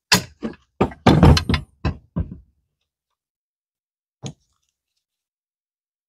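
Quick run of sharp knocks and clacks, about six in two and a half seconds, then one more near the middle: the washer and retainer being pressed onto the pedal support bracket's pivot bearing and knocking against the bracket.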